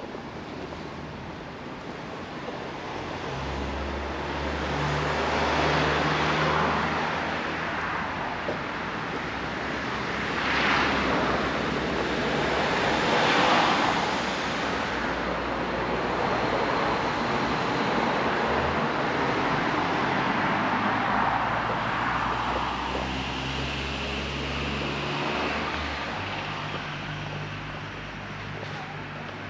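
Road traffic: several cars passing one after another, each a swelling and fading rush of tyre and engine noise, over a low steady engine hum.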